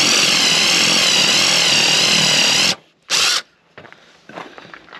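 Power drill boring a 16 mm spade bit into a pine rail: one long run of nearly three seconds with a slightly wavering motor whine, then a short burst of under half a second.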